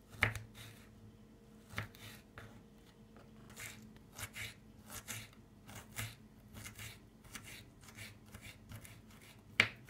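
Kitchen knife chopping fresh ginger into small pieces on a cutting board: irregular sharp taps, about one or two a second, with the loudest strokes just after the start and shortly before the end.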